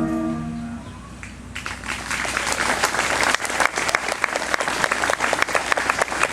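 A wind band's final held chord dies away, then audience applause starts about a second and a half in and swells into steady clapping.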